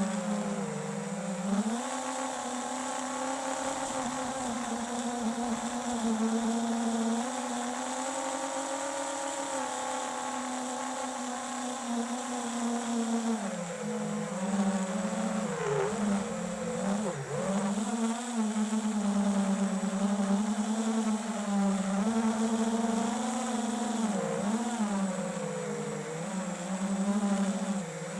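FPV quadcopter's brushless motors and propellers buzzing in flight, the pitch holding steady at first and then dipping and rising again and again with the throttle from about halfway on.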